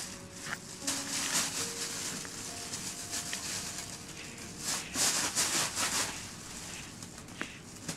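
Rubber grooming brush rubbing through a cat's fur in repeated strokes, with a run of louder strokes about five seconds in.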